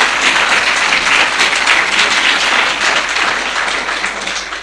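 Audience applauding, steady and loud, then dying away near the end.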